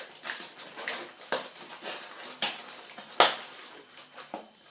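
Lens packaging being handled and opened by hand: irregular crinkles, clicks and light knocks, with one sharp knock about three seconds in.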